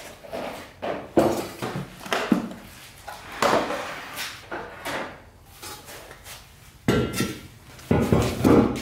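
Irregular clunks, clanks and knocks of bare engine blocks, aluminium vehicle-scale pads and the scales' hard carrying case being moved and handled.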